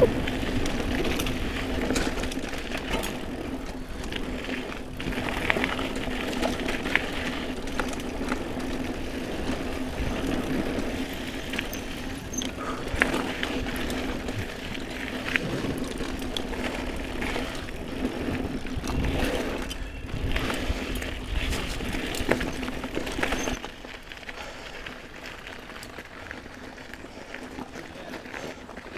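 Mountain bike riding over dirt singletrack: tires on the trail and the bike rattling with many small knocks over roots and bumps, with a steady hum throughout. About 23 seconds in the ride noise drops off sharply as the bike slows and stops.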